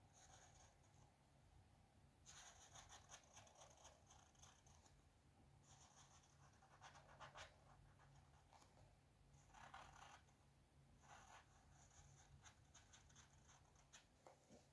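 Faint felt-tip marker scratching along cardboard in several spells of short strokes a few seconds long while tracing around a plastic template.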